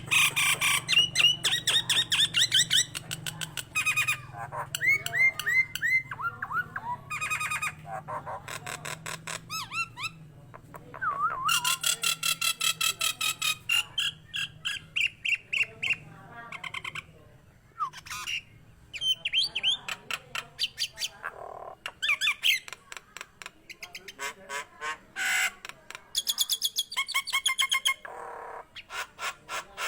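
Jalak nias myna singing in full voice: a fast, varied run of loud whistled glides, harsh squawks and rattling trains of rapid clicks, broken by short pauses.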